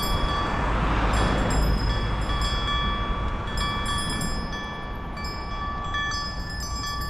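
Wind and road noise on a bike-mounted action camera while riding, a dense low rumble loudest in the first couple of seconds. Several steady high-pitched tones ring underneath throughout.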